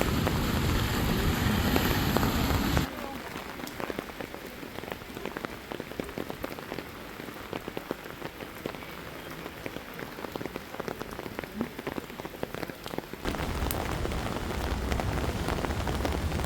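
Rain falling, with many separate drops ticking close by. The sound changes abruptly about three seconds in, from fuller rain with a low rumble to a quieter spatter of drops, and the low rumble returns near the end.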